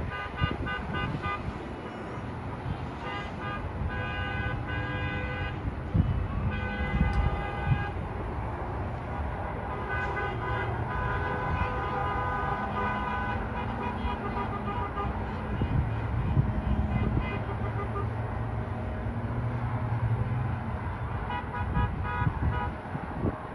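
Vehicle horns from a line of passing cars and trucks honking over and over, several at different pitches sounding together in short and long blasts, over the steady rumble of road traffic.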